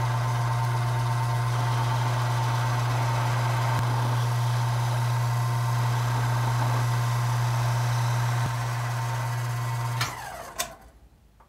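Belt-driven Taig mini lathe running steadily under power, its motor giving a strong low hum with a higher whine, while it turns a small workpiece held in a 5C collet. About ten seconds in the motor is switched off and the sound dies away.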